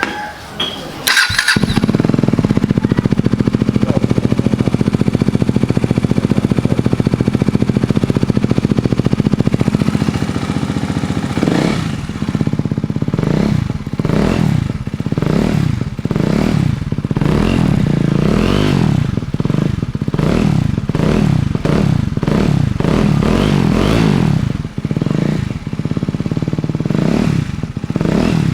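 KTM Duke 250's single-cylinder engine, breathing through a cheap Akrapovic-copy slip-on exhaust with the dB killer left out, starting and idling steadily, then revved in repeated throttle blips after about ten seconds. Very loud.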